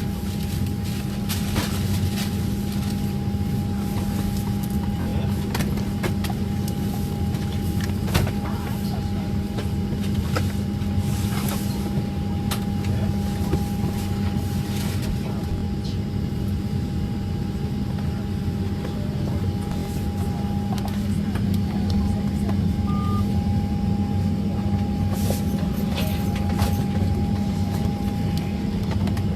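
Steady drone inside an airliner cabin on the ground after landing, with a low hum, a thin steady whine and scattered small clicks and knocks.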